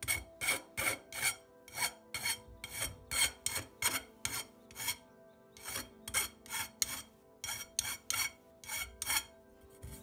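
Hand file rasping back and forth across the cut end face of a half-inch copper tube, about three strokes a second with two short pauses, stopping near the end. It is filing off the raised lip left on the tube's face by the tubing cutter.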